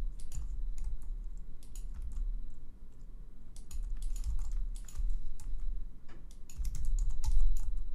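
Computer keyboard keys tapped in short, irregular runs of clicks, over a steady low hum.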